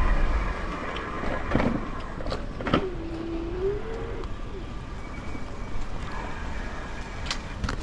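City street traffic noise from passing cars, with a few clicks and a brief wavering squeal about three seconds in.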